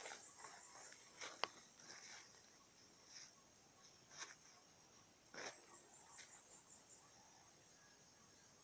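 Faint, steady high-pitched insect chirping, with a few soft brief rustles scattered through it.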